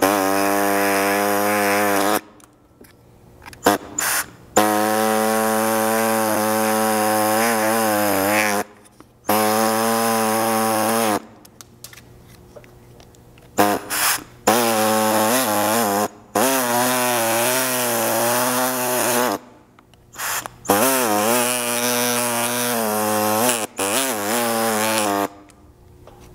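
Pneumatic air saw running in about seven bursts of two to four seconds with short pauses, its pitch wavering as the blade cuts, trimming tabs and a ridge off a black plastic roof-mount clip.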